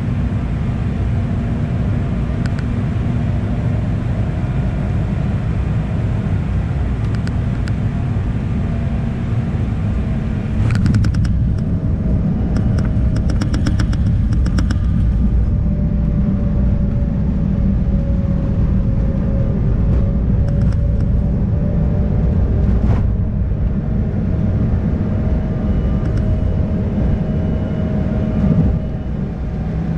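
Cabin noise of an Embraer E190 jet with General Electric CF34 engines on landing: a steady rumble of the engines and airflow with a thin engine whine. About ten seconds in it gets louder, with a run of rattles and knocks for a few seconds, typical of the touchdown and landing roll.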